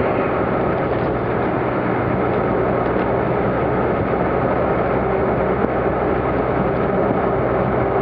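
Jeep driving on a snow-covered road, heard from inside the cab: a steady low engine hum under a constant rush of road and wind noise.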